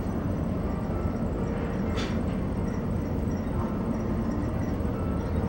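Steady low rumble of a ferry's interior, engine and ventilation noise, with one sharp click about two seconds in.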